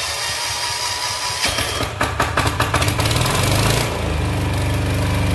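Weima WM178FE single-cylinder diesel on a walk-behind tractor being started on its electric starter. The starter cranks, the engine fires unevenly from about a second and a half in, then settles into a steady idle about four seconds in. This is the engine's first start after being filled with diesel fuel.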